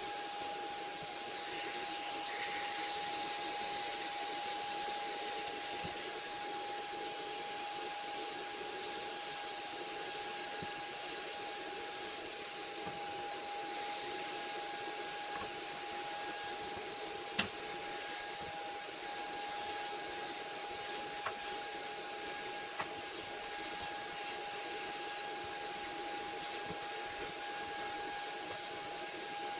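A small electric air-moving motor, such as a vacuum cleaner or electric blower, runs steadily throughout. It gives an even airy hiss with a constant whine, and a few faint clicks fall over it.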